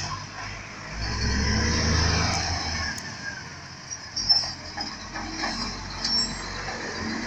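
Side-loader garbage truck's diesel engine running as it pulls up beside the wheelie bins, loudest about a second or two in. A sharp clunk about four seconds in, then brief air-brake hisses and a few lighter knocks.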